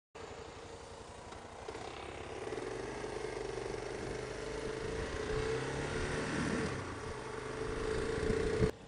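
Motorcycle engine running while riding along a road, a steady engine note with wind and road noise that gradually gets louder. It drops suddenly near the end.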